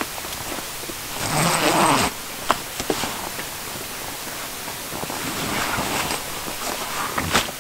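A sled dog gives one gliding whine about a second in. Knocks and rustling of gear being packed onto a dog sled come after it, with a sharp knock near the end.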